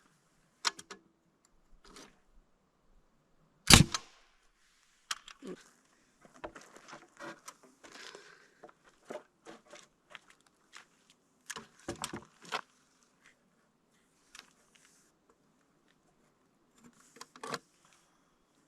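Nails being driven into wooden floor-framing lumber: isolated sharp shots, the loudest about four seconds in and more around twelve and near the end, amid light knocks of boards being handled.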